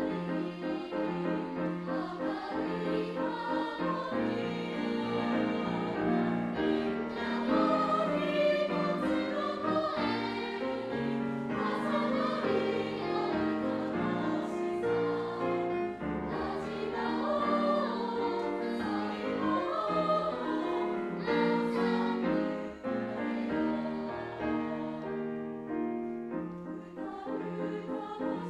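A two-part choir of children and teenagers singing a Japanese choral song with accompaniment, the voices holding long, flowing sung lines.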